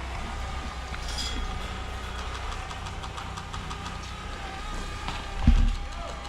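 Steady low mechanical hum with a faint steady whine, like a motor running, and a dull thump about five and a half seconds in.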